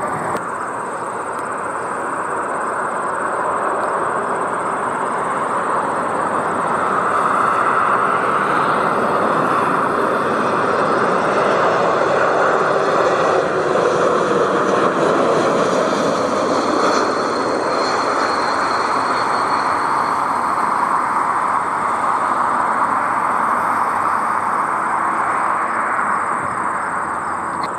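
Jet engines of a narrow-body airliner passing: a broad rushing roar that builds for about ten seconds and then slowly fades, with a faint high whine near its loudest.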